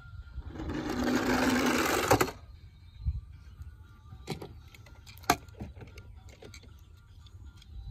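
A small motor whirs for about two seconds, then stops abruptly, followed by a few light clicks and knocks.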